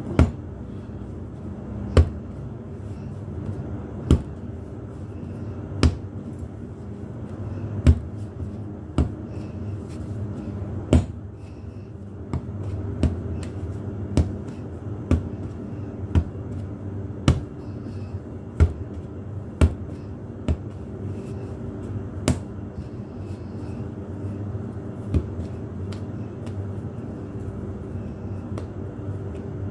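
Ball of yeasted binangkal dough being lifted and slammed down on a floured counter while kneading, giving sharp thuds about every two seconds, then roughly once a second from about halfway in. A steady low hum runs underneath.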